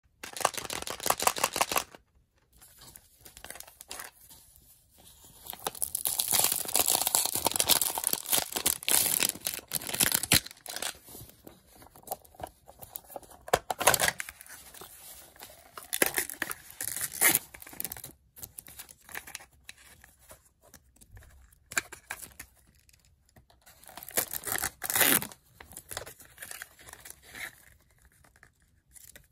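Wrappers on a Zuru 5 Surprise Toy Mini Brands capsule being torn and peeled off by hand, in repeated bursts of tearing and crinkling with short pauses between.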